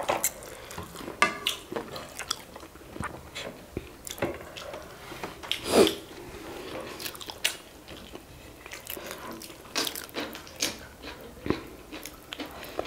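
Wet mouth sounds of eating pork curry and rice by hand: lip smacks and chewing, with short clicks throughout and one louder smack about six seconds in.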